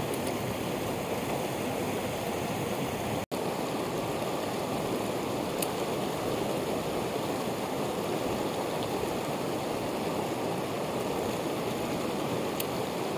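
Fast mountain torrent rushing over rocks: a steady sound of white water, with a momentary break about three seconds in.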